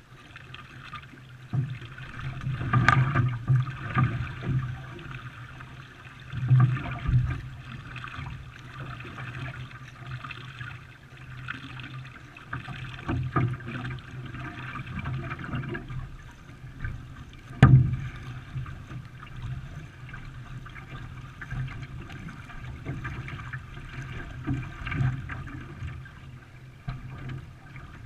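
Canoe paddles dipping and pulling through the water, with water splashing and gurgling against the hull in uneven strokes every second or two. A single sharp knock about two-thirds of the way through.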